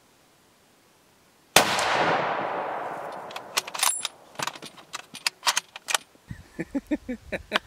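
A single rifle shot about a season and a half in, a sharp crack with a long echo rolling away through the woods, followed by a run of sharp clicks and knocks.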